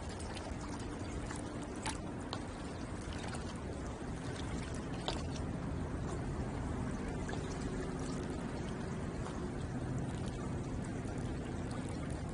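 Water lapping and washing against the shore in a steady wash, with small splashes and clicks scattered through it. A faint low hum sits underneath from about halfway.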